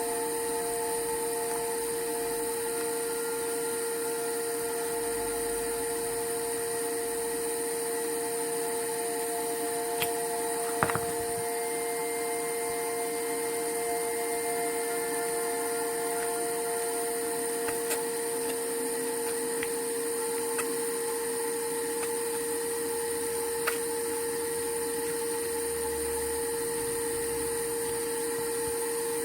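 Steady whirring hum of a small fan or blower with a few fixed whining tones, broken by a handful of faint clicks.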